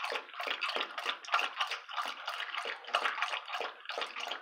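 A dog lapping water from a stainless steel bowl: quick, even splashy laps, about four a second, with the water sloshing against the metal.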